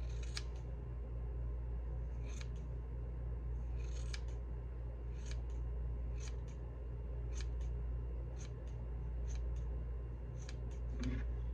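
Scissors snipping through hair as the ends are trimmed, about a dozen short crisp snips roughly a second apart, over a steady low hum.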